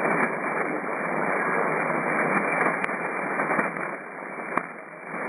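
Shortwave SSB receiver tuned to the 80-metre band between transmissions: a steady hiss of band noise through the narrow voice passband, with a few sharp static crackles, the clearest near three seconds and about four and a half seconds in.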